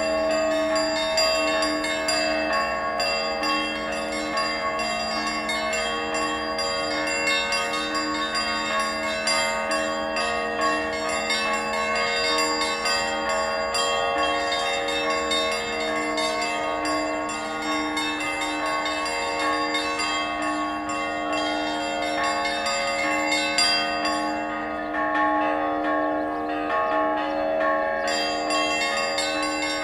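Church bells ringing continuously, the strokes following each other closely so their tones overlap into an unbroken ringing.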